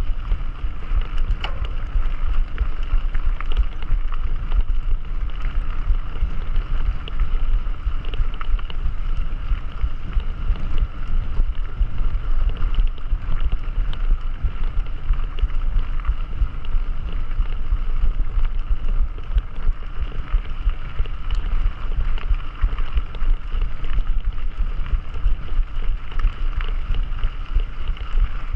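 Wind buffeting the microphone with a steady low rumble over the rolling noise of a mountain bike on the move, with scattered small clicks and rattles.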